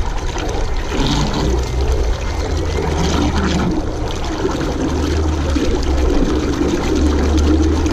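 Bixpy Jet electric water-jet motor running submerged in a tub, churning and splashing the water over a steady low motor hum, drawing some air down into the water.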